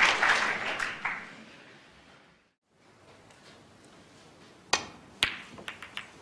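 Audience applause fading out. After a short gap, a snooker cue tip strikes the cue ball with a sharp click, and about half a second later the cue ball clacks into the red balls, followed by a few lighter ball-on-ball clicks.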